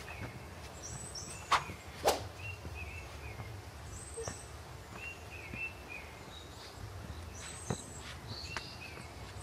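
Birds calling in short repeated chirps over a steady low outdoor background, with two sharp knocks about a second and a half and two seconds in.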